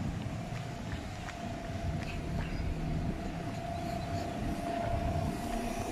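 City bus engine running close by, a steady whine over a low rumble of traffic, with a few faint clicks.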